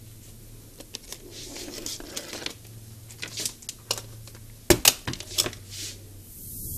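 Handling noise on a workbench: a run of clicks and knocks as small objects are put down and moved, the loudest a little under five seconds in, over a faint steady low hum. A hiss rises near the end.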